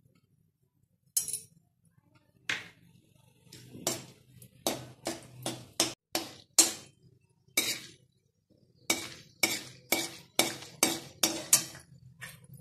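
Perforated metal skimmer spoon clinking and scraping against a metal kadhai while stirring asafoetida frying in a little oil: about twenty sharp strokes, coming faster, about three a second, in the second half.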